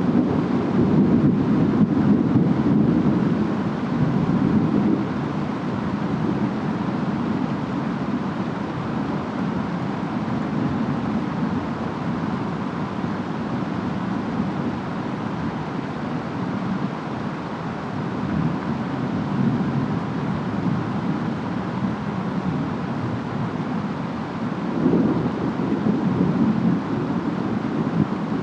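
Distant thunder rumbling low under steady rain and wind, swelling in the first few seconds and again near the end.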